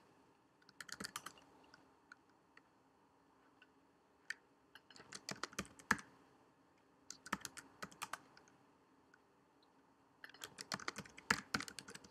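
Quiet typing on a computer keyboard: several short bursts of keystrokes with pauses between them, as a password is entered and then retyped.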